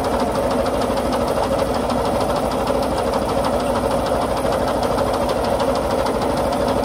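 Kubota RT140 single-cylinder diesel engine on a two-wheel walking tractor, running steadily with a fast, even knocking beat.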